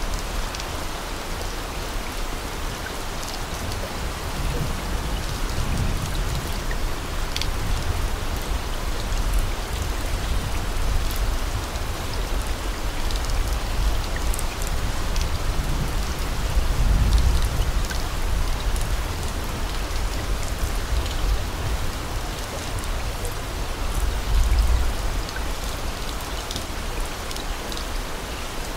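Steady rain: an even hiss with scattered sharp drop ticks and a low rumble that swells a few times.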